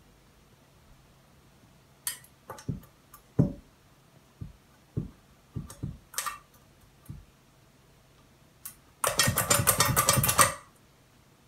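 Empty stainless steel dog bowl knocked and rattled by a hungry poodle pawing at it to demand food. Scattered clinks and knocks come first. About two seconds from the end there is a second and a half of rapid, loud clattering.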